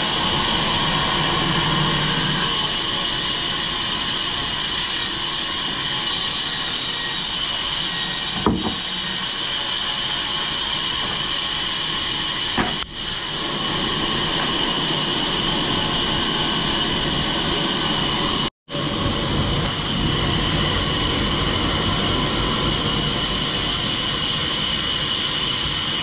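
Large vertical band saw running steadily while timber is fed through it: a loud, even sawing noise with a high steady whine over it. Two sharp knocks are heard, and about two-thirds of the way through the sound cuts out for an instant before going on.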